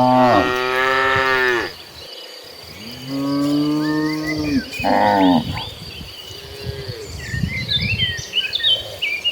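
Cattle mooing: a long, falling moo at the start, another about three seconds in, and a shorter, higher call around five seconds. Birds chirp faintly near the end over a steady high insect whine.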